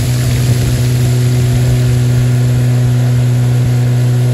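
Boat's outboard motor running steadily at cruising speed, a loud constant hum with no change in pitch.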